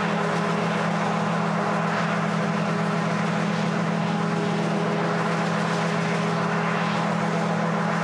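A steady mechanical hum held at one constant pitch, with no change in level or speed.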